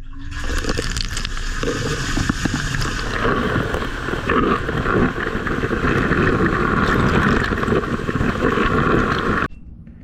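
Water spraying and splashing inside a running Blomberg (Beko) dishwasher's wash tub, heard from inside the tub. The broken lower spray arm, its glued halves come apart, throws a strong jet sideways toward the door, the cause of the door leak. The sound cuts off suddenly near the end.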